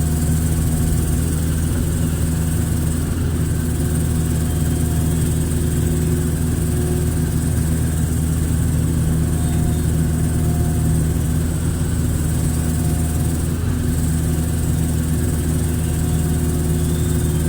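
Hitachi excavator's diesel engine running steadily, with a faint higher whine that comes and goes a few times.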